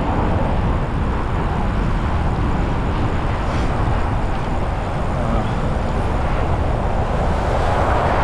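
Steady wind rush on the microphone and road noise from riding a bicycle along a roadway with traffic, an even rumbling hiss that does not change.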